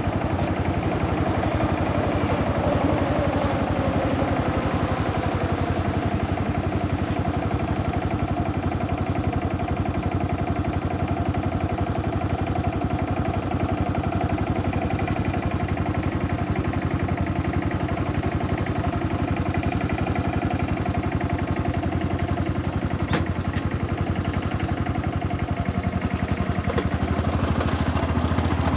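Yamaha SRX400's air-cooled single-cylinder engine running steadily with some mechanical clatter, and one sharp click near the end. The owner suspects a blown transmission and a slipping clutch, with abnormal noises at half-clutch.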